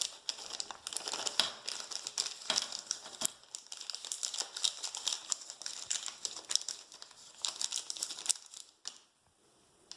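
Packaging being opened and handled: irregular crinkling and crackling with sharp snaps, stopping about a second before the end.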